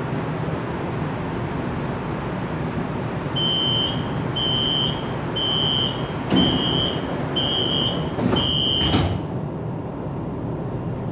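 Door-closing warning on a CSR Zhuzhou LRT train: six high-pitched beeps about a second apart, over the steady hum of the train at rest. As the beeping ends the sliding doors close with a thud.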